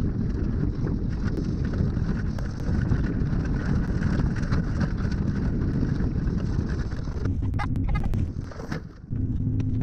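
Wind buffeting an action camera's microphone over the rumble of a tow vehicle pulling a boat trailer across snow and ice. Near the end come a few sharp knocks, then a brief dip and a steady engine hum.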